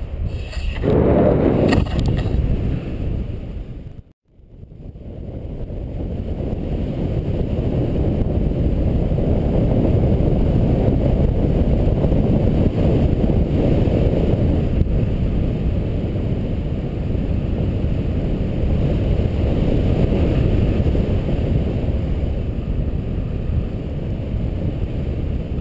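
Wind rushing over the camera microphone in paraglider flight: a loud, steady low rumble that cuts out for a moment about four seconds in, then builds back up.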